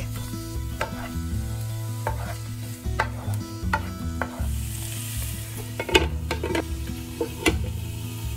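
Pork pieces and shallots sizzling in oil in a nonstick frying pan while a wooden spatula stirs them, scraping and knocking against the pan several times. The raw pork is being fried until it is no longer pink.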